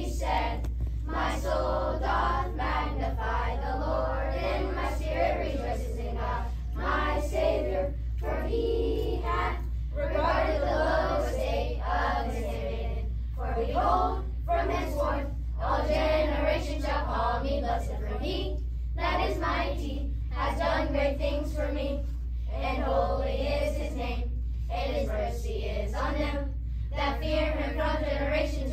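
A class of children's voices in unison, delivering a recitation together in phrases broken by short pauses.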